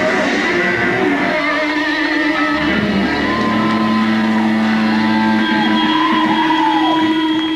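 Rock music with electric guitar, with long held notes that bend in pitch around the middle.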